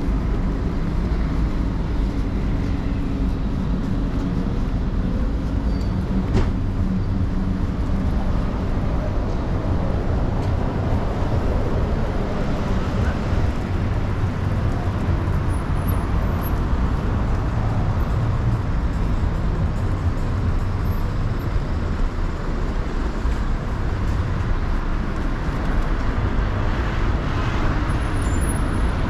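City street traffic: a steady rumble of cars and buses passing.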